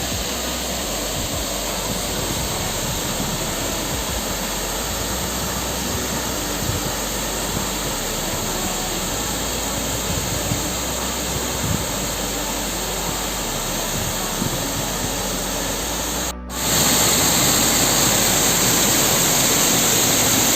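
Waterfall: a steady rush of falling water and spray. It cuts out for a moment about three-quarters of the way through and comes back louder.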